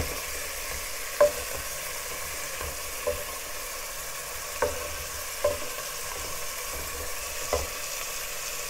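Lamb and diced onions sizzling as they fry in a pot, stirred with a wooden spoon that knocks against the pot about five times.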